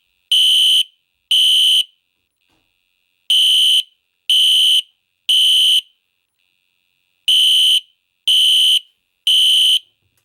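Edwards Genesis horn-strobe sounding its horn on the low volume setting, in the temporal-3 evacuation pattern. Each group is three loud, high-pitched half-second beeps about a second apart, with a pause of about a second and a half between groups.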